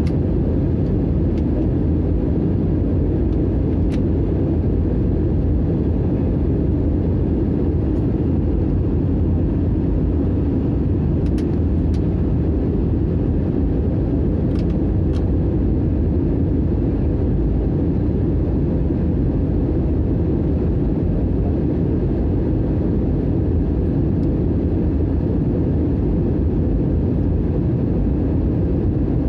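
Steady low cabin noise of an airliner descending to land: jet engine and airflow noise heard from inside the cabin.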